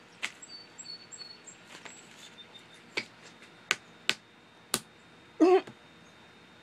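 A baby slapping her hand on a tabletop: a few separate sharp slaps, most of them between three and five seconds in, then a short wavering squeal from her about five and a half seconds in, the loudest sound. Faint bird chirps in the first second and a half.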